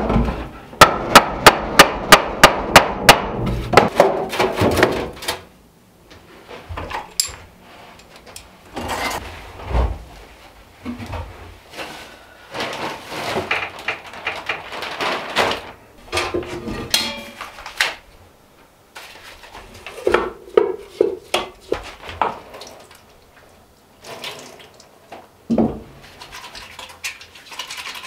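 Claw hammer striking a wooden block held against the side of a hand-formed 20 oz copper sink, shaping the copper: about ten quick, sharp blows at roughly four a second. These are followed by scattered clunks and rustling of handling.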